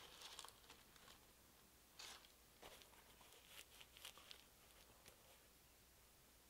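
Near silence, broken by faint rustles and scuffs as a sneaker is handled and turned over: a cluster around the start, another about two seconds in, and a few more up to about four and a half seconds in.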